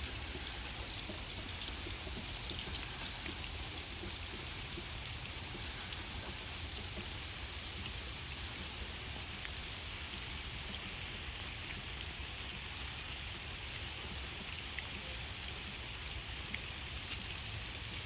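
Steady rain falling, with scattered individual drops ticking on surfaces.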